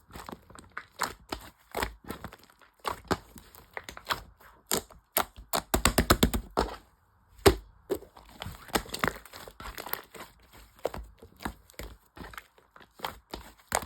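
Irregular sharp cracking and crinkling clicks, with a quick run of about ten clicks a second near the middle and a short pause just after it.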